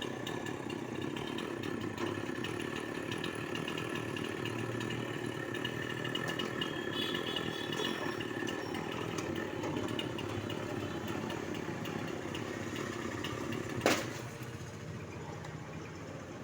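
Chainsaw running steadily while cutting a tree. Near the end there is a single sharp crack, after which the saw is quieter.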